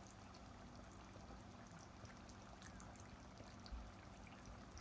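Near silence: faint room tone with a steady low hum and one soft low bump a little before the end.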